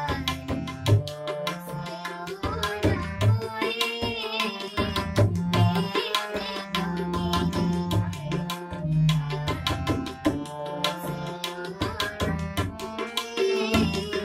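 A girl's voice sings a Hindi devotional bhajan to harmonium accompaniment, with a tabla pair keeping a steady rhythm of sharp strokes on the smaller drum and booming bass strokes on the larger bayan.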